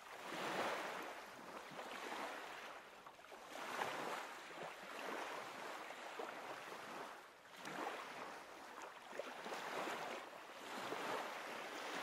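Faint wash of waves, swelling and falling back about every three to four seconds.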